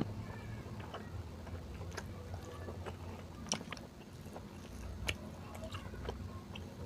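A person eating beef curry with rice close to the microphone: chewing with irregular small clicks and smacks, over a steady low hum.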